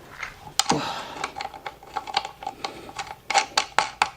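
Quick irregular metal clicks and clacks from the wheel's axle, washers and spacers being worked into the e-bike frame, with a faint steady tone underneath.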